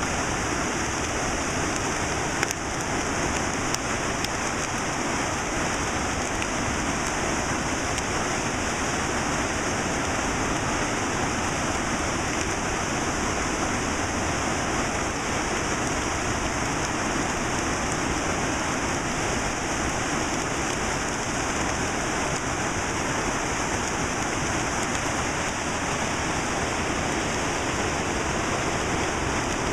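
Fast river rapids rushing over rocks: a steady, unbroken wash of whitewater noise.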